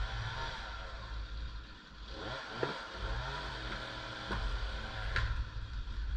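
Chainsaw revving up and down in short bursts, with a few sharp knocks in between.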